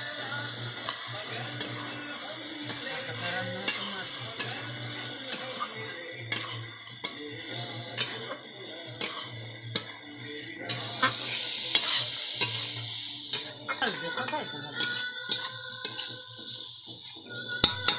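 Chicken pieces and masala powder sizzling in a metal kadhai while a spatula stirs them, with frequent sharp knocks and scrapes of the spatula against the pan. The sizzle swells louder a little past the middle.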